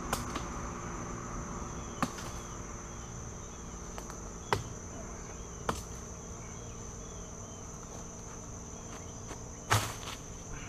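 Glock 78 field knife chopping through brush and branches, used as a machete: about five sharp whacks a second or more apart, the loudest near the end. A steady high chirring of insects runs underneath.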